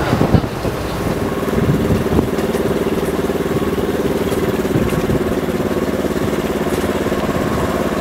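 Vehicle engine running with a steady hum, heard from inside the cabin, after a few knocks in the first half-second.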